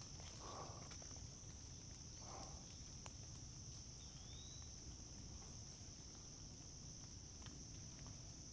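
Quiet woodland: a steady high-pitched insect drone, with a few soft footsteps on the dirt trail and one brief rising chirp about four seconds in.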